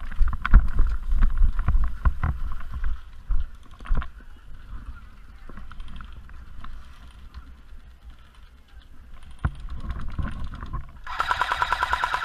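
Knocks and thumps of gear and movement for the first few seconds, then near the end an A&K PKM airsoft electric machine gun starts firing full-auto, a rapid, even buzzing rattle.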